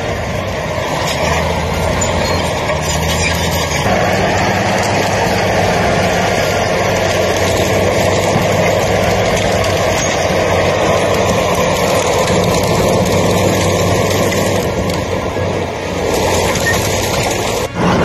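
A heavy machine's diesel engine running steadily under a loud, rushing roar of wind and burning fire whirl, with a brief break near the end.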